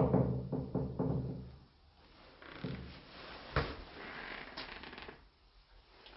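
A fallen door being stepped on: a sudden loud, hollow bang with a booming low tail and a few quick knocks right after it, then softer scuffing with one sharp knock about three and a half seconds in.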